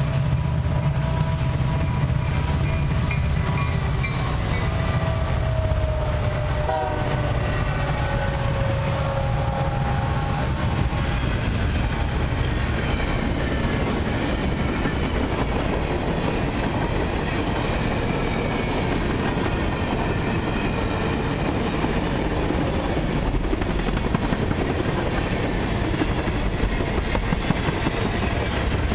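Diesel-hauled freight train passing close by: the locomotive horn sounds over the first several seconds and drops in pitch as the lead units go by about seven seconds in. Then a steady rumble and clickety-clack of freight cars rolling past.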